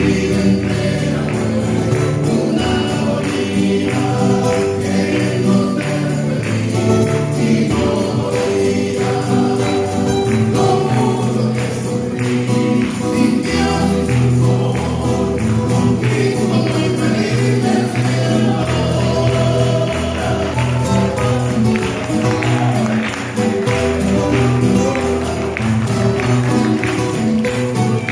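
Spanish-language gospel worship song performed live: singers over a moving bass line with a tambourine shaken in a steady beat.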